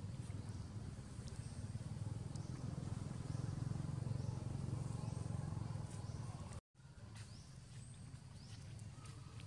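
Outdoor ambience: a steady low rumble with short, high rising chirps repeating about once a second. The sound cuts out for an instant about two-thirds through.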